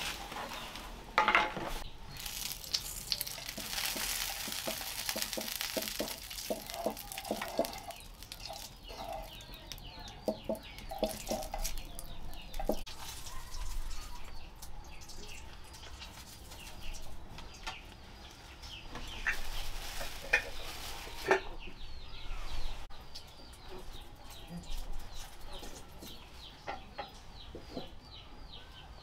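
Chickens clucking on and off, with scattered short calls.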